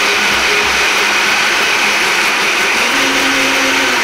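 Countertop blender running at full speed, blending pancake batter of eggs, milk and flour until foaming. Its steady motor hum steps up a little in pitch near the end, and it is switched off and spins down at the very end.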